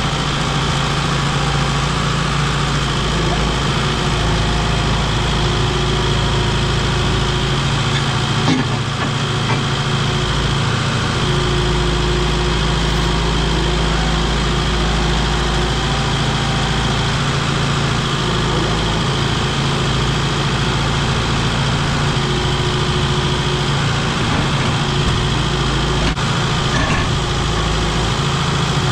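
Heavy work-vehicle engine running at a steady speed, with one brief knock about a third of the way in.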